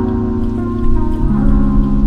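Background music: sustained organ-like keyboard chords changing every second or so, over a steady rain-like hiss.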